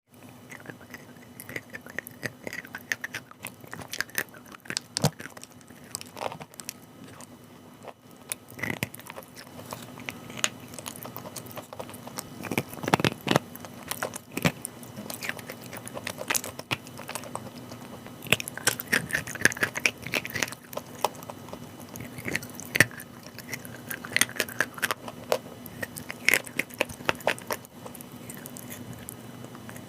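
Chalk being bitten and chewed: irregular crisp crunches and clicks, over a faint steady hum.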